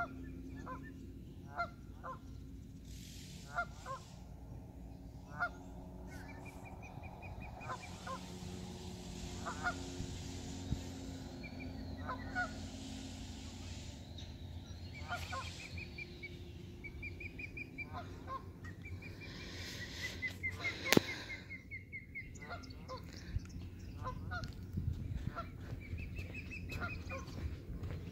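Canada geese honking in short, scattered calls, with smaller birds singing runs of quick repeated notes now and then. A single sharp click about three-quarters of the way through is the loudest sound.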